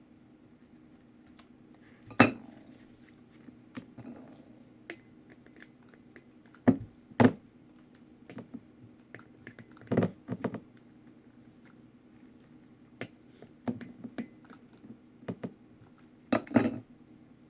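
Scattered knocks and clinks of a small glass vase being handled and set against a table while rope is wrapped around it, a dozen or so sharp taps at uneven intervals.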